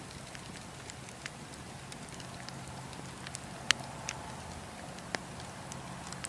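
Fire crackling over a steady hiss, with a few sharp pops scattered through it and the loudest a little past halfway.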